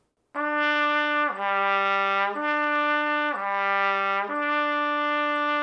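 Trumpet playing a slurred lip-slur exercise with valves 1 and 2 held down: written E down to low A and back up, twice, ending on a held E. The notes are joined by the air without tonguing.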